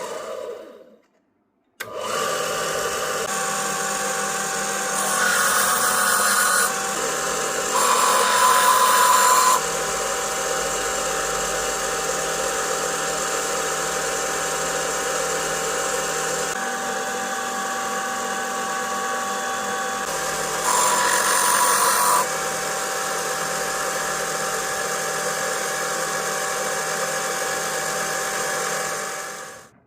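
Power tool motor running steadily with a constant whine, cutting out briefly about a second in. It grows louder and brighter for three short stretches, the second near the start and the third about two-thirds through.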